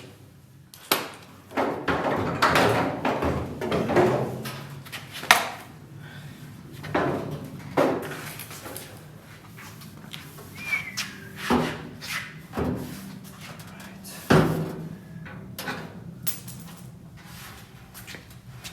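Steel pickup-truck door coming off its hinges: a string of irregular metal clanks, knocks and thuds as it drops free and is handled, the loudest knocks about five seconds in and again about fourteen seconds in.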